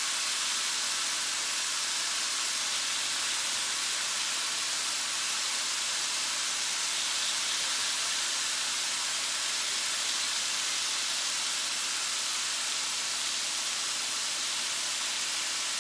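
Ribeye steaks sizzling on a hot electric grill plate: a steady, even hiss that does not let up.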